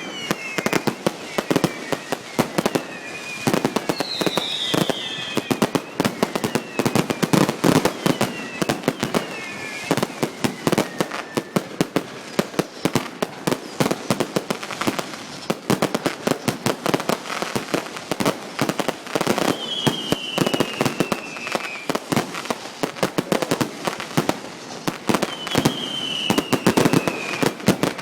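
Fireworks display: a dense, continuous run of rapid bangs and crackling, with whistles that fall in pitch, the clearest about 4 seconds in and again near 20 and 26 seconds.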